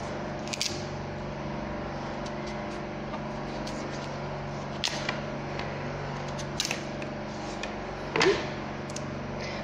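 Kitchen knife slicing the hard green skin off a kabocha squash: a few short, sharp scraping cuts, over a steady low hum.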